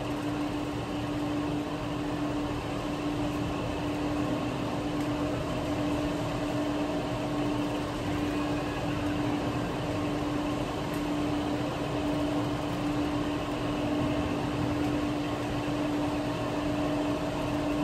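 Steady hum of a casino floor: an even background noise with one constant low tone and a fainter higher one, holding level without change.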